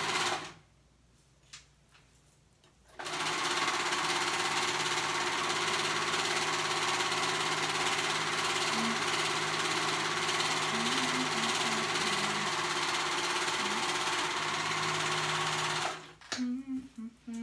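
Serger (overlock machine) stitching a seam in the hood's face edge: it runs steadily, stops about half a second in, starts again about three seconds in, and runs until it stops near the end.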